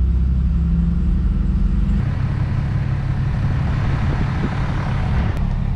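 Truck driving: a steady low engine drone, which changes about two seconds in to a rougher rush of wind and road noise over the engine's rumble.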